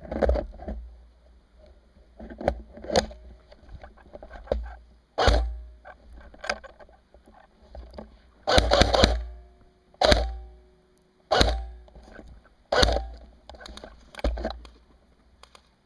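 A series of dull thumps with rustling, about one every second or so, with a quick cluster of them a little past halfway.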